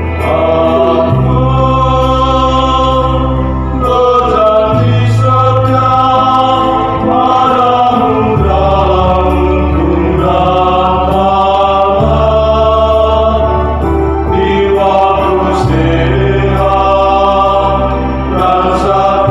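Mixed choir of men's and women's voices singing a hymn, over sustained low bass notes that change every few seconds.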